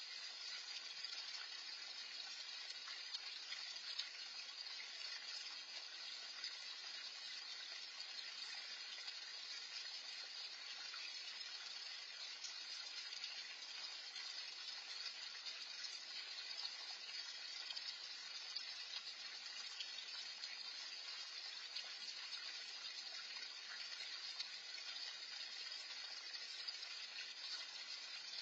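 Steady splashing of a small backyard pond fountain, an even rush of falling water with no change in strength.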